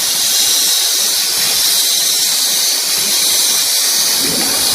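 Beer bottle filling machine running: a loud, steady hiss with a faint thin whine held under it.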